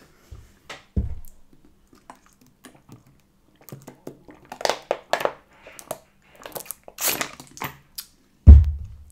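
Drinking from a plastic sports-cap bottle: the plastic crinkles and there are gulps, with scattered small clicks. About eight and a half seconds in, a loud low thump as the bottle is set down.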